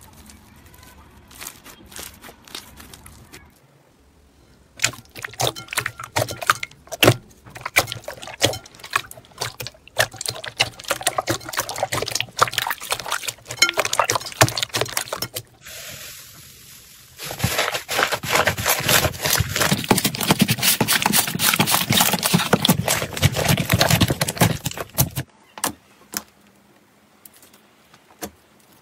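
Hands squeezing, kneading and pressing slime, making sticky pops, clicks and squelches. About two-thirds of the way in, the clicks thicken into several seconds of dense crackling, then thin out to sparse pops near the end.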